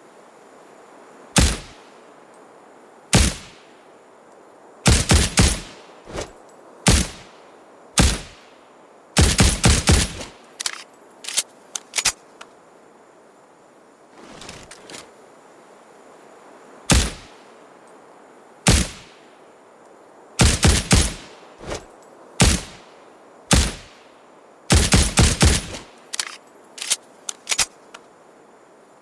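Suppressed Ruger Security-9 9mm pistol firing: single shots a second or two apart and quick strings of several shots in rapid succession, with fainter clicks in between.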